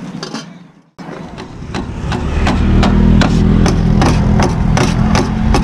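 Knife blades chopping shawarma meat on a stainless-steel tray, starting about a second in: a quick, steady rhythm of sharp metal clacks, about four a second, over a low steady rumble.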